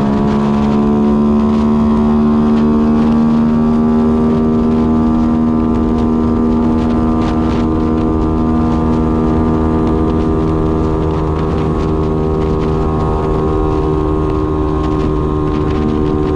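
Yamaha Y15ZR motorcycle's single-cylinder four-stroke engine pulling at a steady cruise, heard from the rider's position. The engine note climbs at the very start, then holds almost level, sagging slightly later on, over steady road noise.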